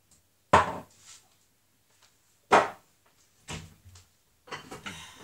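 Kitchen cupboard doors knocking open and shut: three sharp knocks a second or two apart, then a light clatter of crockery near the end as a plate is taken from a wall cupboard.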